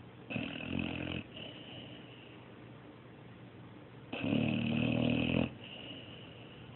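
A sleeping dog snoring: two snores, a short one just after the start and a longer, louder one about four seconds in.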